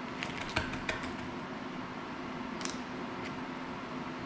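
A few light clicks and taps of small hand tools and drone parts handled on a work table, mostly in the first second and once or twice more near the middle, over a steady hum.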